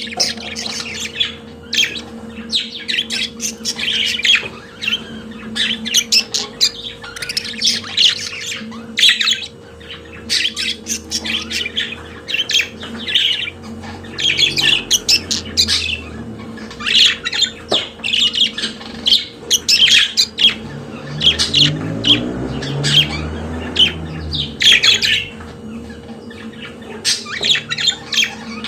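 Pet budgerigars chattering: quick clusters of short chirps, warbles and squawks with brief pauses between them.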